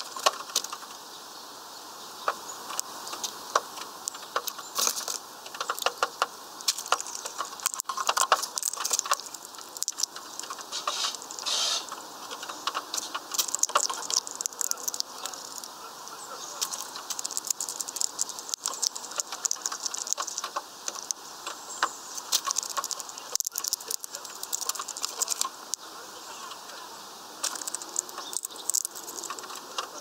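Finches pecking among and cracking sunflower seeds on a feeder tray: a busy, irregular run of sharp clicks and rattling of seed husks.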